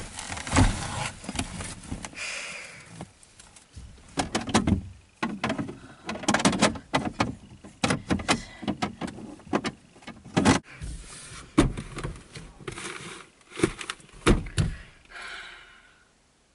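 Someone rummaging inside a car: an irregular run of clicks, knocks and rustles as things in the cabin are handled and moved, dying away near the end.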